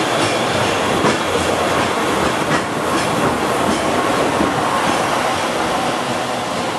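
Peak Tram funicular car passing close by and running on along its track: a steady rattle of wheels on rails, with a few sharp clacks.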